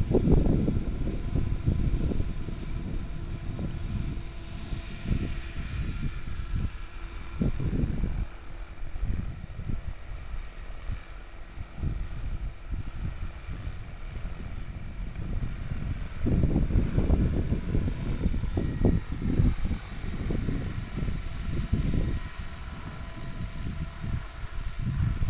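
Radio-controlled aerobatic helicopter running and lifting off into a hover, its rotor and drive making a steady whine with several held tones. Loud, uneven wind buffeting on the microphone rumbles underneath and is the loudest sound.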